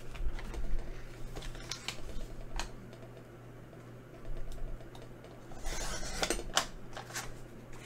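Cardstock handled and laid on a Fiskars sliding paper trimmer with light taps and clicks, then, about six seconds in, the trimmer's blade carriage pushed along its rail to cut the cardstock, a brief scraping swipe with clicks as it starts and stops.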